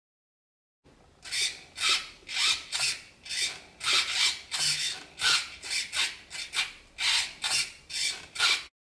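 Acoms steering servo of a vintage Tamiya Holiday Buggy sweeping the front steering back and forth in short bursts, about two a second, starting about a second in: the steering works.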